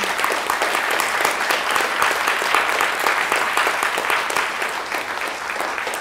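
Audience applauding: dense, steady clapping from many hands that eases slightly near the end.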